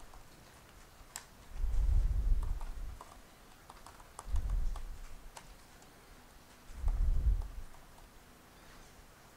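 Typing on a computer keyboard: scattered light key clicks, with three dull low thumps about every two and a half seconds.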